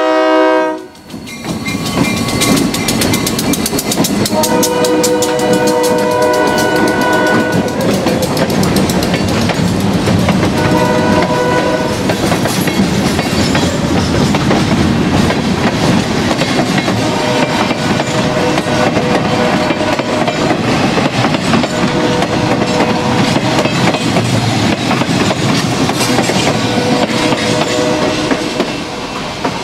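Freight train passing: the lead diesel locomotive's horn blast cuts off about a second in, then the wheels rumble and clatter over the rail joints as a tank car and empty flatcars roll by. The horn sounds again in several more blasts while the cars pass, and the rumble drops as the last car clears near the end.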